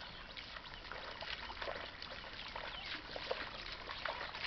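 Muddy water sloshing and splashing as a wooden plank leveller is dragged through a flooded paddy seedbed and feet wade through the mud: a steady patter of small wet splashes.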